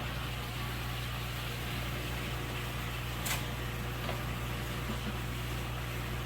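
Steady low machine hum with one brief click about three seconds in.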